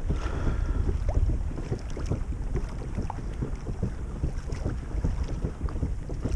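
Wind buffeting the microphone over small waves lapping and slapping against the hull of a kayak under way, a steady rumble with many short irregular knocks of water.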